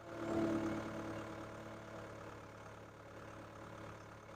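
Caterpillar 287B skid steer's turbocharged engine running at low revs, briefly louder about half a second in, then steadier and fainter.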